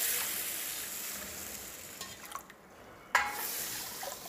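Water poured in a stream into a stainless steel bowl of barley and idli rice to wash the grains, a rushing splash that gradually tapers off. A short, louder sound comes about three seconds in.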